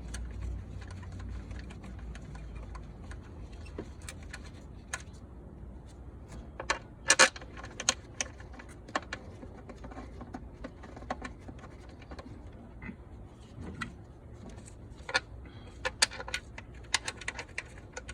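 Scattered light metallic clicks and clinks of steel bolts being handled and set into the intake manifold's bolt holes, loudest in a quick cluster about seven seconds in and again near the end, over a low steady hum.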